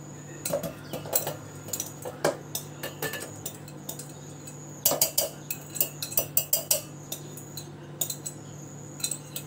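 Wire whisk scraping and clinking against a glass bowl and the rim of a steel mixer-grinder jar as mashed banana is knocked out into the jar, with a quick run of clinks about five seconds in.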